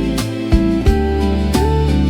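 Background instrumental music: plucked notes at a steady, even pace.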